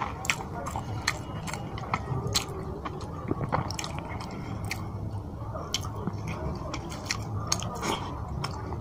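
Close-miked chewing of rice and fish curry, with many sharp, wet mouth clicks and smacks, and fingers squishing curry-soaked rice on the plate.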